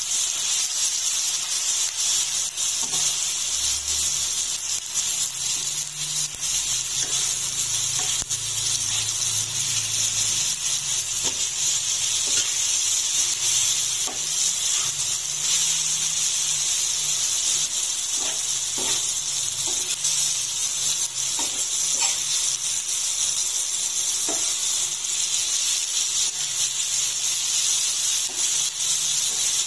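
Eggplant, onion and tomato frying in oil on a flat tawa griddle: a steady sizzle with occasional small crackles.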